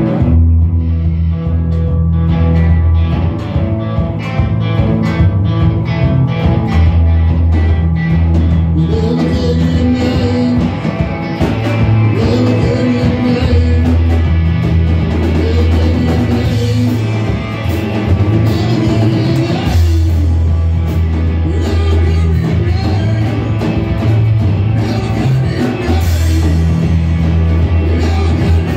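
Live rock power trio playing loud, a psychedelic jam: electric guitar, electric bass and drum kit. The bass holds long low notes under the beat, and a wavering, bending melodic line runs through the middle.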